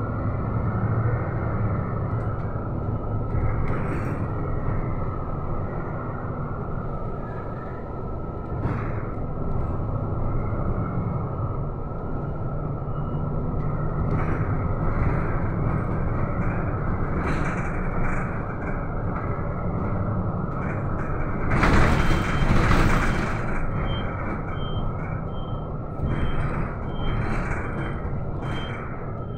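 City bus driving, heard from inside: engine running with road and rattle noise. About two-thirds of the way in comes a loud burst of air hiss from the air brakes, and near the end short high beeps about twice a second start as the bus slows in traffic.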